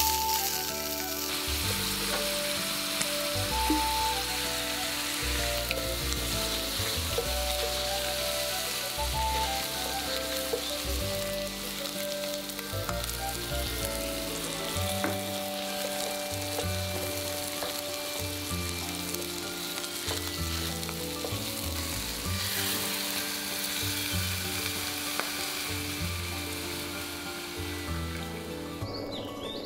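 Diced chicken sizzling in butter in a frying pan, stirred with a wooden spoon, with background music underneath. The sizzling dies down near the end as milk is poured into the pan.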